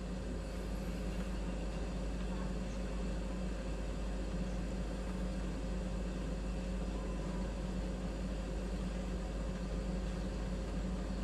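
Kings 75-litre dual-zone portable fridge's compressor running steadily on its maximum setting, an even, unbroken hum with a constant low tone.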